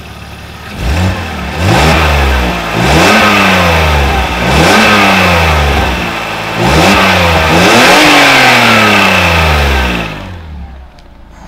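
BMW M54 straight-six petrol engine revved several times in quick succession, each rev rising sharply and falling back slowly, then settling to idle near the end. It is heard from under the car at the exhaust, whose drilled holes by the lambda sensors have just been welded shut, so the exhaust no longer leaks there.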